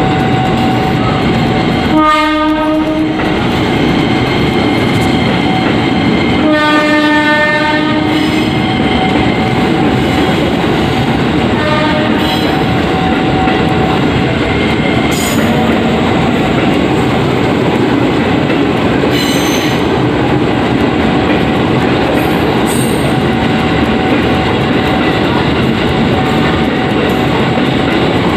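KRL Commuter Line electric train running past close by with loud, steady rail noise. A horn sounds twice, about two seconds in and again at about six and a half seconds, each blast lasting about a second.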